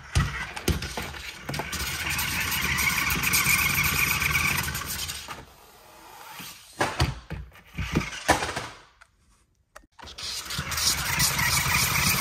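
Electric motors of a remote-control skateboard toy whirring as it drives and spins across a tabletop, with a steady whine that drops away after about five seconds. A few knocks and clatters follow, then a brief pause, and the whir starts up again near the end.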